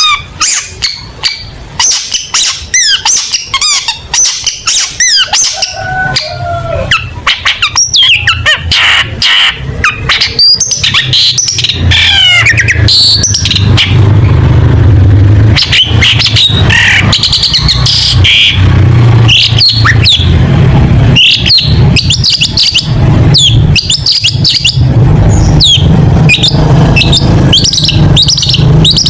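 Long-tailed shrike (cendet) singing loudly in a fast, varied stream of sharp chirps, whistled notes and rattling trills. A steady low hum sits underneath from about twelve seconds in.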